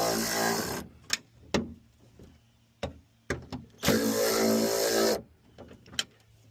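Handheld power tool driving the spoiler's mounting bolts: a steady motor whir that stops about a second in and runs again for about a second and a half near the end. Several sharp clicks and knocks of metal hardware being handled come in between.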